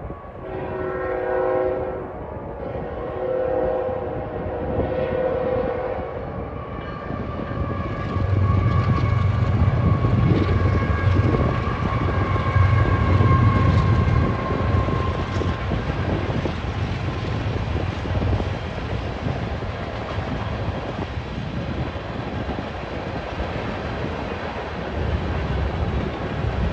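Union Pacific freight train led by ET44AH and AC45CCTE locomotives, its air horn sounding in about three blasts over the first few seconds. From about 8 seconds in, the locomotives pass with a loud, low engine rumble. The manifest's freight cars then roll by steadily on the rails.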